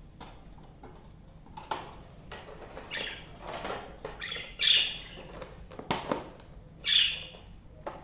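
Budgerigars giving several short, harsh squawks, the loudest about two-thirds of the way through and again near the end. Between the calls come a few sharp clicks and rattles of the wire cage being handled.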